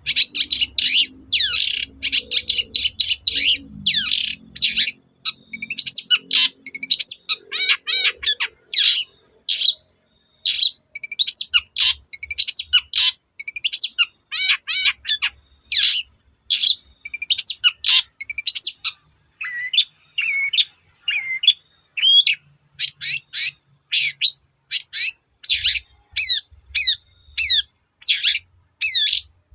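Long-tailed shrike (cendet) singing in full voice: a fast, nearly unbroken stream of short chirps, whistles and trills, full of phrases mimicked from other birds, with one brief pause about ten seconds in.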